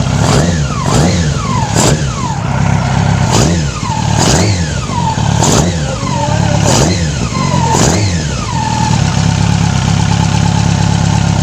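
Yamaha R6 inline-four engine blipped about eight times, each rev climbing and falling back, then settling to a steady idle about nine seconds in. The revs are erratic and drop back, which the mechanic says is sometimes a carburettor ailment that correct carb synchronization should cure.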